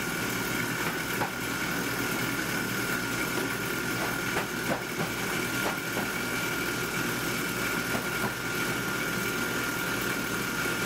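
Electric noodle-dough mixer running steadily, its paddle churning flour into crumbly dough. A steady motor hum and whine, with a few light clicks.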